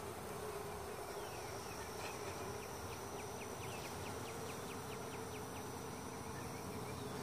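Honeybees buzzing around an open hive: a steady, fairly faint hum. A quick run of faint ticks sounds for a few seconds in the middle.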